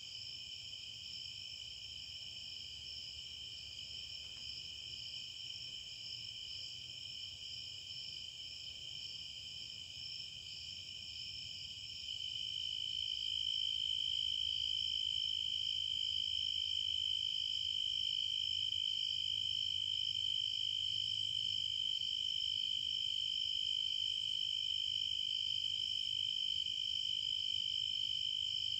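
Steady insect chorus: a continuous high-pitched trill with no breaks, growing louder about twelve seconds in.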